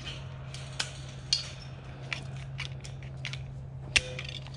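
Cable-tie tensioning tool working a plastic zip tie tight: a series of sharp clicks about every half second, with one louder snap near the end.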